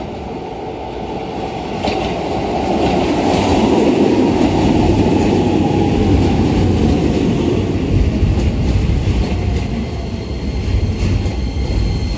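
Keisei New 3000 series electric train pulling into the station. Its rumble grows louder as it comes close, with wheels clacking over rail joints and a whine that falls as it slows. Steady high-pitched tones appear near the end.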